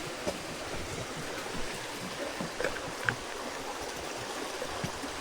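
Stream water flowing steadily: an even rush of running water, with a few faint short ticks over it.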